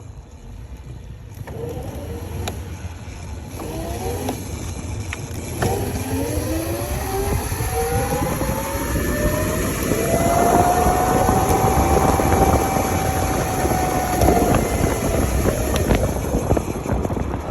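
Electric motor whine of a modified Razor RSF650 electric mini moto under acceleration: a few short rising whines, then a long climb in pitch that levels off, holds for a few seconds and eases down near the end, over a steady low rumble.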